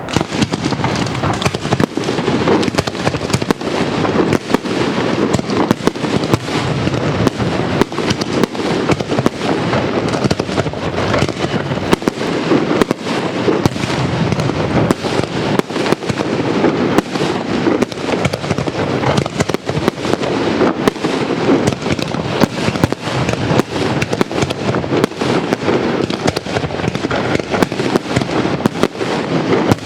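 Castillo fireworks: a dense, unbroken barrage of aerial shells bursting and crackling, with many sharp bangs a second and no let-up.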